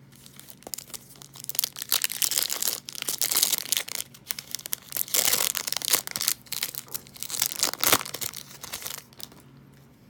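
Trading-card pack wrapper being torn open and crinkled, a dense run of crackling and rustling that dies away near the end.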